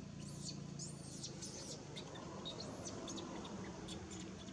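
Small birds chirping: a quick run of high, arching chirps over the first three seconds and a few short ones near the end, over a faint low hum.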